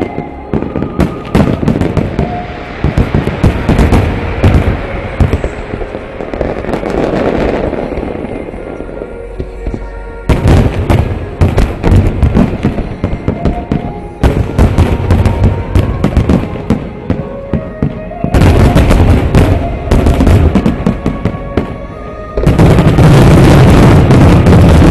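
Aerial firework shells bursting in rapid volleys, with dense near-continuous barrages about eighteen seconds in and again near the end. Music plays underneath.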